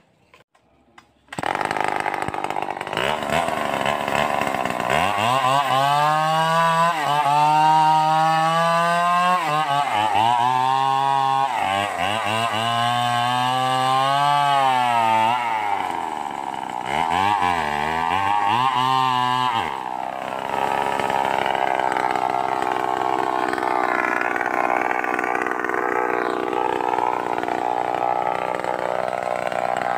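Stihl 038 two-stroke chainsaw starting up loudly about a second in, then revved up and down several times. From about twenty seconds in it runs at a steadier, less changing pitch.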